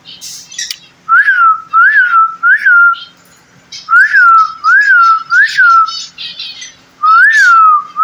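Loud, clear whistled notes, each rising and then falling in pitch, given in quick groups of three with a pair near the end, and faint bird chatter in between.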